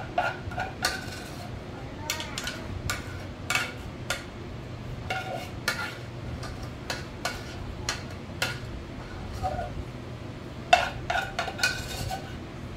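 Cooking utensil clinking and scraping against a bowl and baking pan as cornbread batter is scraped in. The sharp, ringing clinks come irregularly, about one a second, with a quick cluster near the end.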